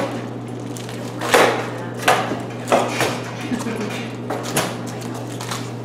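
About five sharp knocks at irregular intervals, over a steady low hum.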